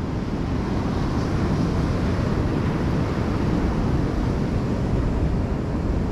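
Steady low rumbling wind noise on the microphone, with no distinct events.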